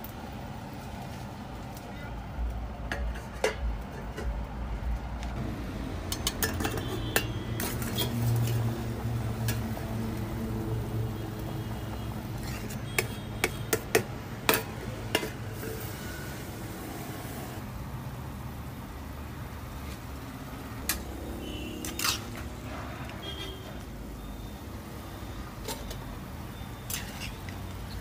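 Cooking handling sounds: scattered clinks and knocks of metal cookware and utensils, loudest and most frequent in the middle and again near the end, over a low steady hum.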